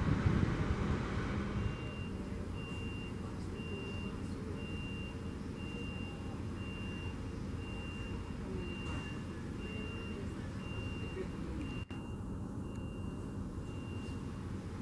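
A vehicle reversing alarm beeping steadily, about two beeps a second, over a low rumble that is louder for the first couple of seconds.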